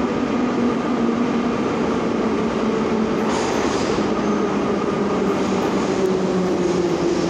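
Ezh3 metro train running into the station: a steady rumble of wheels and motors with a whine that sinks in pitch near the end as the train slows. A brief high hiss comes about three seconds in.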